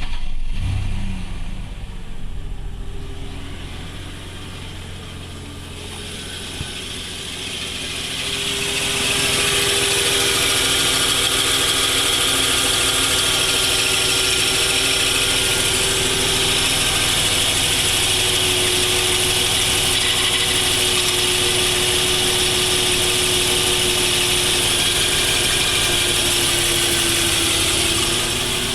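1994 Ford F-150 engine catching and running. From about eight seconds in, a louder, steady hissing whine builds and holds. This noise comes from a failing harmonic balancer, which left alone wears through the timing cover.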